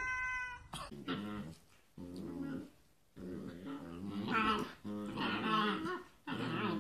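A husky puppy vocalising in a string of about five drawn-out, wavering whines and howls with short breaks between them. Just before, the last of a cat's meow cuts off within the first second.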